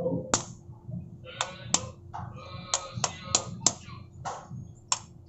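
Sharp knocks, about nine in five seconds at an uneven pace: mud crab claws being cracked open so the sauce can soak in.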